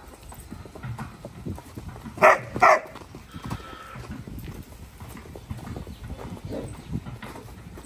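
Kathiyawadi horse cantering on a lunge line, its hooves thudding on packed dirt in a quick rhythm. About two seconds in, a dog barks loudly twice, half a second apart.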